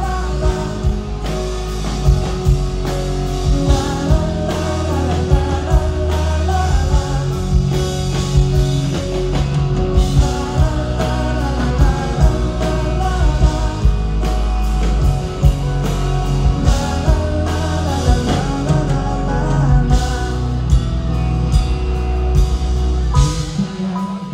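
A singer performing live into a microphone with a band, heard through the hall's sound system: a sung melody over a heavy bass line and regular drum hits. The band stops near the end.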